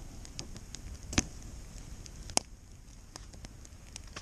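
Wood campfire crackling, with irregular sharp pops; the two loudest come about a second in and again a second later.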